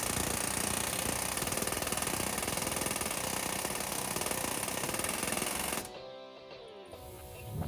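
Pneumatic air hammer chattering rapidly against steel while trying to drive out the differential's centre pin, stopping abruptly about six seconds in. Music plays underneath.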